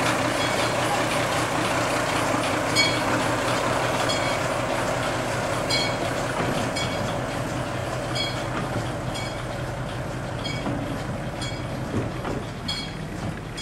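Small diesel shunting locomotive running steadily as it moves a passenger coach at slow speed, its wheels clicking over the rail joints about once a second. The sound fades gradually as the train draws away.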